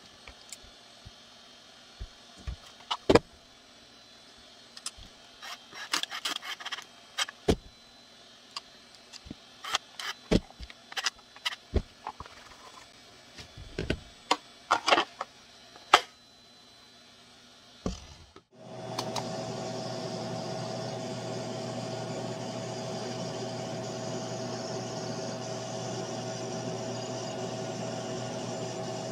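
Scattered sharp clicks and knocks of Kydex holster parts and small screw hardware being handled and fitted by hand. About 18 seconds in these stop and a laser engraver starts running, a steady hum with a constant mid-pitched tone, as it marks the Kydex holster.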